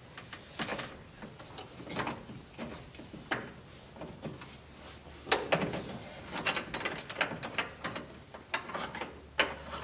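Ignition switch bezel nut being turned off by hand after being knocked loose: irregular small metal clicks, scrapes and rattles, busier in the second half.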